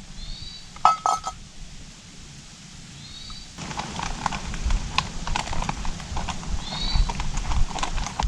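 Irregular hard knocks and scuffs, with a short clink about a second in and a busier run of knocks over the last half. A small bird gives a short, high, falling call three times, a few seconds apart.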